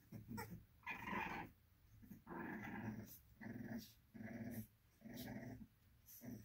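Young American Bully puppies growling at each other as they wrestle in play, a string of about five short growls roughly a second apart.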